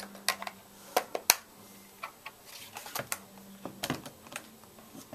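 Irregular plastic clicks and knocks from handling an electric stapler and its staple-storage compartment, with the loudest clicks about a second in and near the end.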